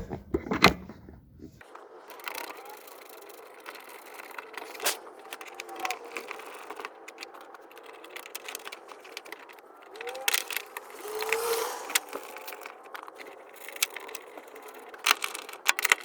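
Scattered metallic clicks and rattles of bolts and small metal parts being handled while a fuel pump assembly is bolted down, with a denser run of clicks near the end.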